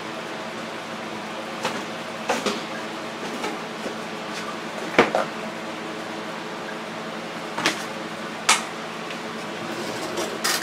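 Scattered clicks and knocks of a cupboard and containers being handled, with a louder thump about five seconds in, over a steady low hum.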